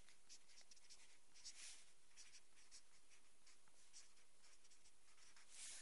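Faint scratching of a felt-tip marker writing letters, in short irregular strokes one after another.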